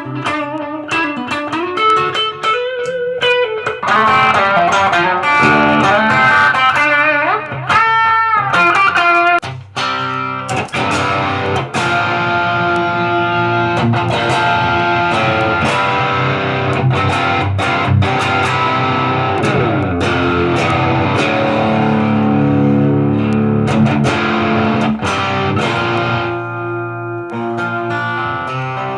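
Ash-body Telecaster-style electric guitar with brass bridge saddles, played through a pedal board of effects and an amp. Single-note lines with notes bent up in pitch give way, about ten seconds in, to fuller, ringing chords.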